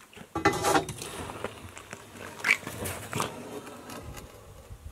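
Galvanized steel fence top-rail pipe being handled on a pipe-bending table: a rattling scrape about half a second in, then sharper metal clinks a couple of seconds later.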